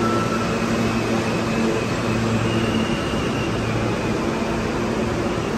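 New York City subway trains in an underground station: a steady hum from a train standing at the platform while a train on the far track pulls out, with a faint high whine that steps up in pitch over the first few seconds.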